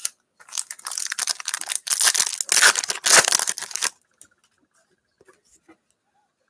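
A foil wrapper on a 2018 Panini Contenders football card pack being torn open and crinkled, a dense rustling that stops about four seconds in.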